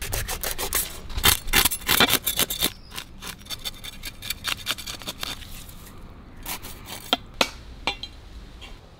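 A cleaver scraping the scales off a whole fish on a wooden block: fast rasping strokes for about the first three seconds, then slower, sparser strokes with a few sharper knocks.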